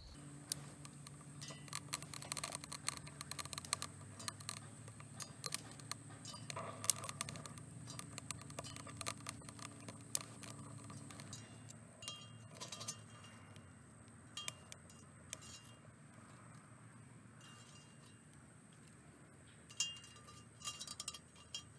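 Dry twigs crackling and popping as a fire catches in a homemade steel rocket stove, with sharp irregular clicks, thick at first and thinning out later, and a few more near the end as sticks are fed into the stove.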